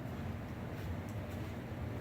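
Steady low background hum with a few faint, light clicks.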